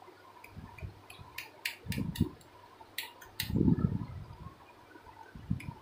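A kitchen knife scoring soft dough in a steel plate, its blade clicking and scraping against the steel several times, with a few dull thumps, the loudest about three and a half seconds in.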